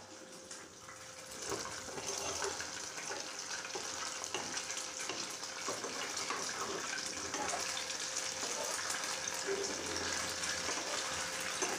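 A French toast slice (egg-and-milk-soaked bread) shallow-frying in hot oil in an aluminium pan, sizzling and crackling steadily. It is softer at first and builds about a second in.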